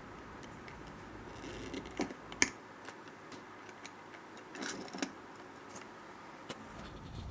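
Faint steady hiss with a few scattered small clicks and taps, spaced irregularly a second or two apart.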